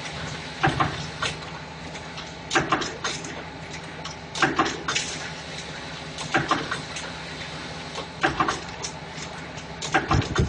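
Spot welding machine welding wire handle clips onto can ends, cycling about every two seconds. Each cycle gives a short cluster of sharp metallic clacks as the electrode head comes down, welds and lifts. A steady machine hum runs underneath.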